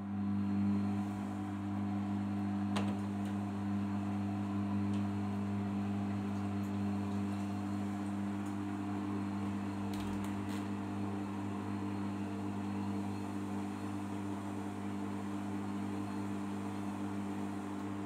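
Arçelik 5083 front-loading washing machine tumbling a wet, sudsy load in the wash phase: a steady motor hum under the noise of the turning drum. There are faint clicks about three seconds in and again about ten seconds in.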